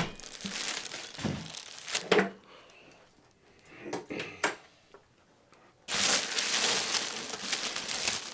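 Plastic wrap and styrofoam packing being pulled off a PC case: crinkling and rustling with sharp clicks, a quieter stretch with a few light knocks in the middle, then loud continuous crinkling from about six seconds in.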